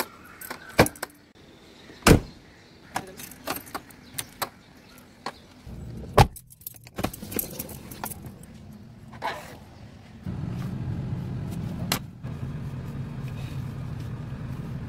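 Car keys jangling and clicking in the door lock, with a string of sharp clicks and knocks from the lock and door as the car is unlocked and entered. About ten seconds in a steady low hum starts: the car's engine running.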